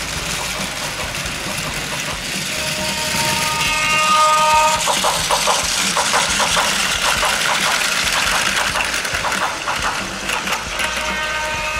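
Battery-powered Plarail toy trains running on plastic track, their small motors and gears whirring. About three seconds in a held, horn-like tone sounds, then a run of rhythmic clacking at about three or four a second, and the tone comes back near the end.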